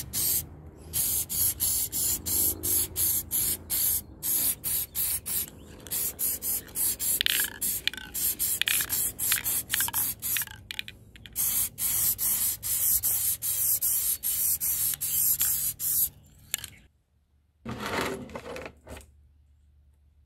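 Aerosol can of green spray paint hissing in many short bursts with brief breaks between them, as a plastic pedal-tractor hood gets a coat of paint. It stops about 17 s in, and a brief noise follows near the end.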